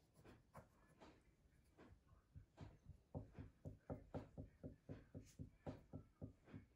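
Faint, quick tapping of a paintbrush dabbing paint in a plastic paint tray, about four or five light knocks a second, starting a little over two seconds in.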